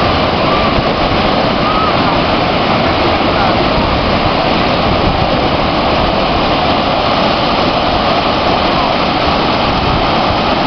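Surf breaking and washing up a sandy beach: a loud, steady rushing of waves.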